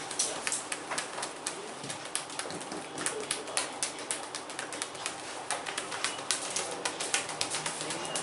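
A masseur's hands slapping and patting bare skin during a back massage: quick, irregular smacks, several a second.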